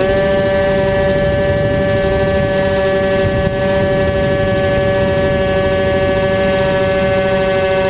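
Radio-controlled model aircraft's motor and propeller running at a steady pitch, with a rushing wind noise underneath. The tone rises slightly at the start, then holds steady.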